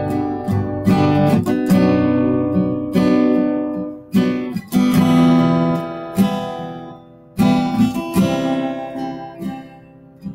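Acoustic guitar strummed, chords ringing out between strokes and dying down, softer toward the end.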